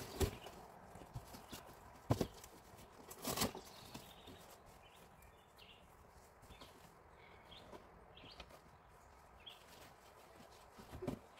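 Cardboard being handled and laid down on grass: a few sharp thumps and scrapes in the first few seconds, then only faint scattered rustles, with another short cluster near the end.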